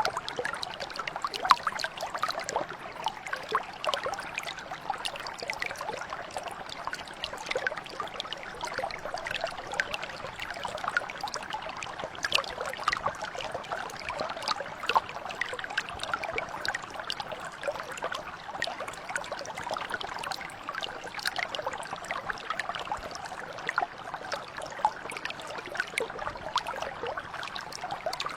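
A small stream or brook flowing steadily, with a constant trickle and many small splashes of water.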